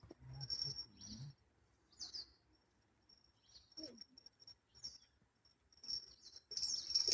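Insects chirping in short high trills, joined by a few brief bird chirps; the insect chirping becomes loud and continuous near the end.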